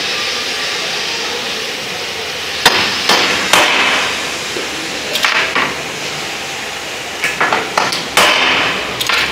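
Hammer striking steel, driving a double spring (roll) pin into the shift shaft of a Mercedes G221 truck gearbox's shift mechanism. About eleven sharp metallic strikes come in irregular groups, each with a short ring.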